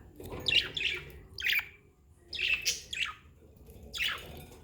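Pet budgerigars chirping: short, harsh, chattering calls that come in bursts about once a second, with brief pauses between.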